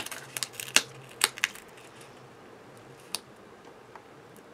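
Light clicks and taps of cardstock being handled and pressed down by hand onto a card: several in the first second and a half, then one more about three seconds in.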